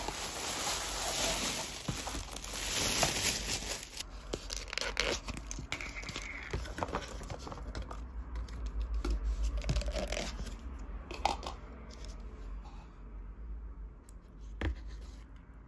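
Thin plastic bag rustling and crinkling as takeaway food containers are unwrapped, then scattered light clicks and knocks of plastic containers and lids being handled.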